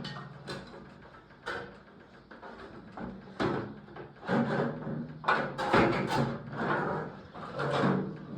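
Irregular knocks, scrapes and clatter of metal parts and tools being handled, with several sharper knocks among them.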